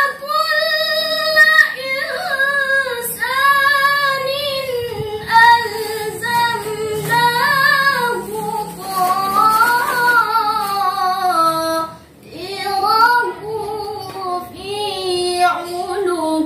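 A young woman's solo voice chanting a Quran recitation in the melismatic qiraat style, unaccompanied. Long, wavering held notes slide up and down, with a short pause for breath about twelve seconds in.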